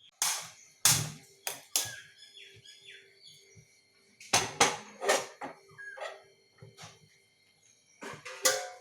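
A cooking pot knocking and clattering as it is set down on the stove: a few sharp knocks in the first two seconds, a pair about four and a half seconds in, and more near the end. Faint bird chirps sound between the knocks.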